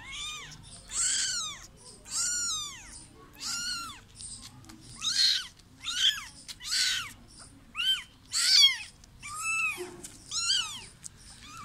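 A kitten meowing over and over: about ten high calls, roughly one a second, each rising and then falling in pitch.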